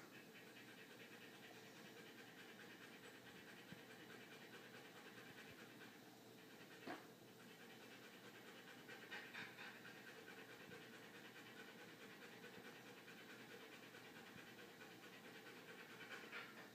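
Siberian husky panting, faint and steady, a little stronger about nine seconds in and again near the end, with one brief sharp click about seven seconds in.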